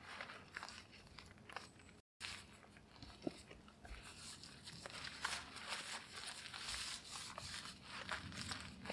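A tarp rustling and crinkling as it is pulled and dragged across a roof of wooden poles, with scattered small scrapes and crunches. A short gap about two seconds in breaks the sound.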